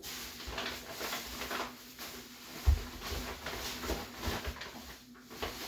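Rustling and crinkling of a shopping bag as it is rummaged through, in irregular bursts, with one dull thump about two and a half seconds in.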